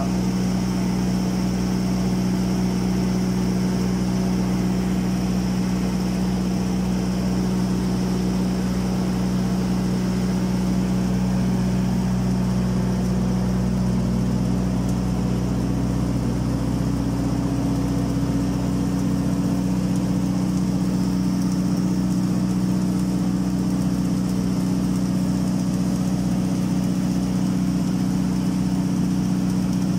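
Automatic girth welding carriage running along a tank seam: a steady machine hum with a low drone, and a second, higher tone joining about halfway through.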